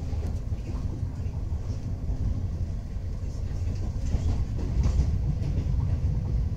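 Interior running noise of an EG2Tv Ivolga electric multiple unit in motion: a steady low rumble from the wheels and track, with a faint steady hum above it.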